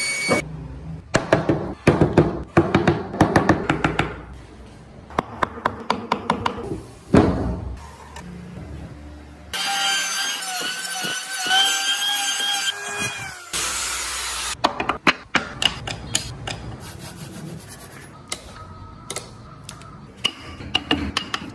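Woodworking sounds: rapid knocks and strikes of tools on wood, then an electric hand planer running with a steady whine for about four seconds, then more sharp strikes as a chisel cuts into the wood.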